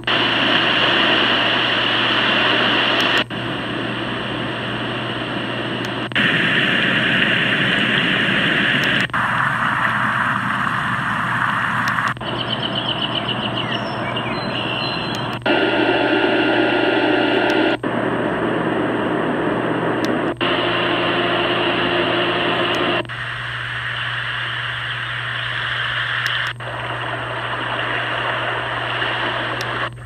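A Pictek HP007B white noise machine's small speaker playing its recorded sounds one after another, turned up: each is a steady noise, from hissing static to rumbling and water-like noises, and each cuts off abruptly into the next about every three seconds as the sounds are stepped through.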